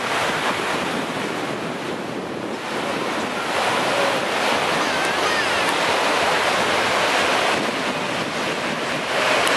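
Small surf breaking and washing up a sandy shore: a steady rush of waves, a little louder about a third of the way in.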